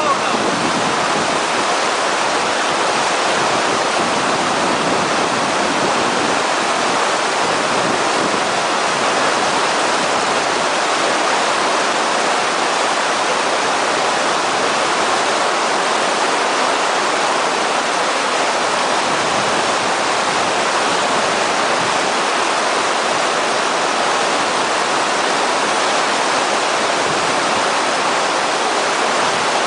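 Creek at flood stage rushing through rapids and a standing wave: a steady, loud rush of whitewater that does not let up.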